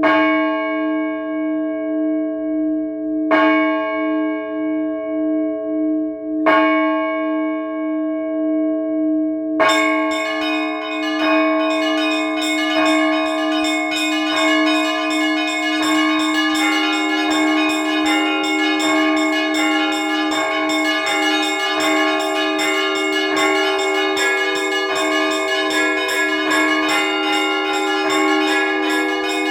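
Russian Orthodox church bells. One large bell is struck three times about three seconds apart, each stroke left to ring with a pulsing hum. About ten seconds in, the full trezvon peal begins, with many bells together and the small bells chiming rapidly over the larger ones.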